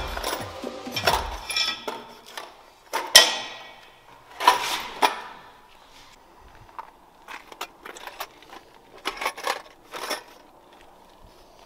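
Hand tools being picked up, handled and set down on a hard stone floor: scattered metal clinks and knocks with some rustling. The loudest knock comes about three seconds in, with a couple more about a second and a half later.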